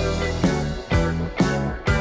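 Background music: guitar-led rock with a steady beat of about two strong hits a second.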